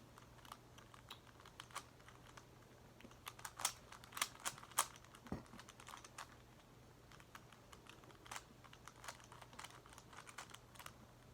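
Plastic faces of a Megaminx puzzle being twisted: scattered light clicks and clacks, with a bunch of sharper ones a few seconds in, over a faint steady low hum.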